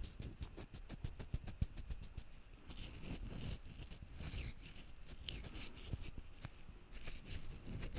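ASMR scratching sounds close to the microphone, imitating fingers scratching and stroking a listener's head. Quick, rapid scratch strokes come in the first couple of seconds, then slower, softer rubbing.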